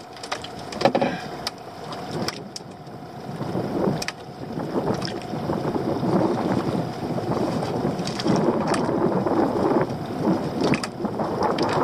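Water slapping and sloshing against the hull of a small boat, with wind on the microphone and a few scattered knocks on deck.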